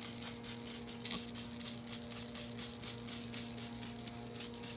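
Hand trigger spray bottle squirting acidic wheel cleaner onto radiator fins in quick repeated pumps, about five hissing squirts a second, over a steady low hum.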